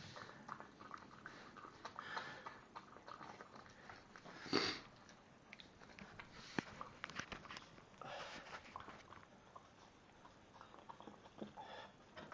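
Miniature schnauzer eating spaghetti: irregular small clicks and smacks of chewing and mouthing the pasta. About four and a half seconds in there is one short, louder noisy burst, with smaller ones later.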